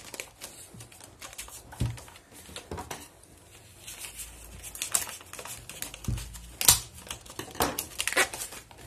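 A paper label sticker being peeled off the tread of a new motorcycle tyre: irregular crinkling and tearing rustles with a few soft knocks from handling the tyre, the loudest crackle about two-thirds of the way in.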